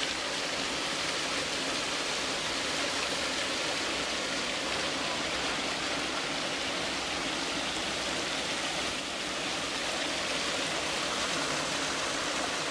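Water rushing steadily down a narrow concrete spillway, a continuous even splashing.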